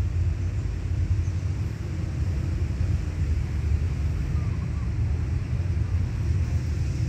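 GEA-class diesel-electric locomotive approaching from far off, a steady low rumble.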